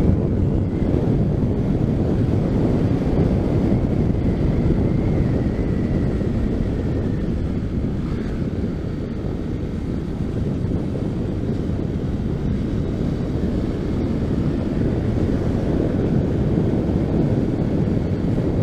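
Steady wind rush buffeting the microphone on a moving motorcycle, with the 2016 Honda CB150 Streetfire's engine and road noise mixed in underneath.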